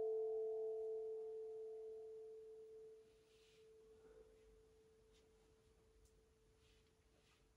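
D Kurd handpan's last struck note ringing out: a single steady tone that fades away and dies to near silence after about three seconds. A few faint ticks follow.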